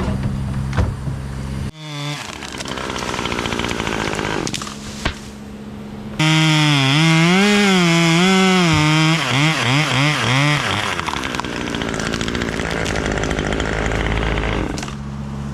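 Chainsaw cutting wood, its engine note wavering up and down as it works through the cut and loudest a few seconds in. A steadier engine hum runs at the start and again near the end.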